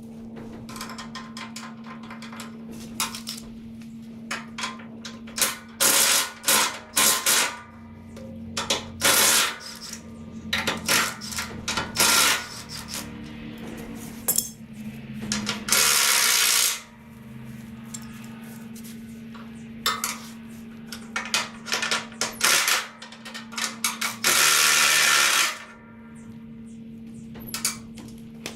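Hand and power tools working on the bolts of a hay wagon's running gear: a series of sharp metallic clanks and clicks, and twice a power tool runs for about a second. A steady low hum runs underneath.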